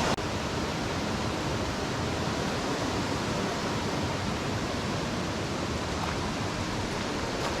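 Steady rush of a mountain trout river's flowing water, an even, unbroken noise.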